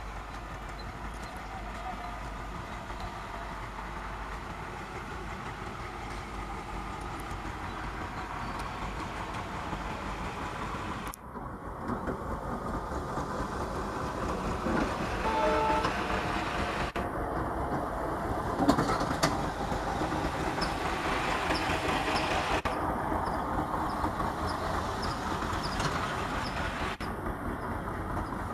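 An Indian Railways WDG-3A diesel locomotive, with an ALCO 251 V16 engine, approaching with a passenger train. Its engine and running noise grow steadily louder as it nears. The sound breaks off suddenly about a third of the way through and then picks up again, louder.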